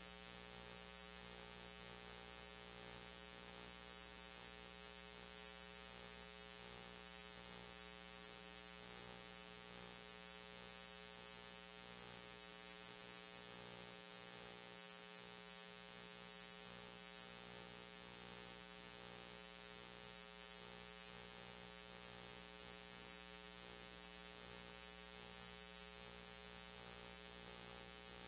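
Near silence: a faint, steady electrical hum on a weather radio feed with no voice, dead air between broadcast messages.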